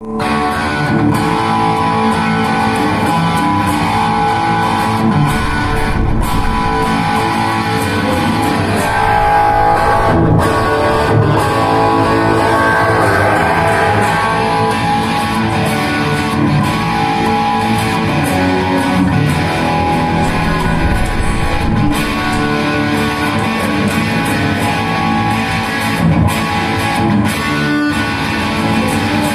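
Dean ML 'Dime O'Flame' electric guitar played through a Bugera 6262 Infinium valve amp head on its crunch channel. The playing is a continuous run of overdriven riffs and chords, with no breaks.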